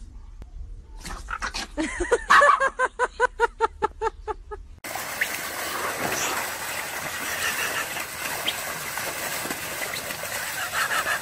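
Dogs scuffling, one giving rapid yapping snarls about five a second. About five seconds in, this gives way to steady rushing and splashing: water pouring out over the pushed-down wall of an inflatable pool as a dog climbs out.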